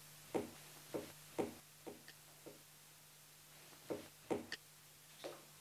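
Sugar cubes being lifted from a ceramic sugar bowl and dropped into a mug of tea, with small clinks and knocks of china, about ten in all: a run over the first two and a half seconds and a few more about four seconds in. A faint steady low hum lies underneath.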